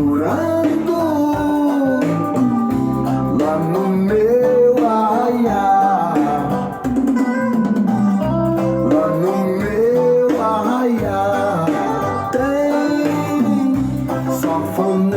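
Reggae music: a passage with a gliding lead melody over guitar and a steady bass line.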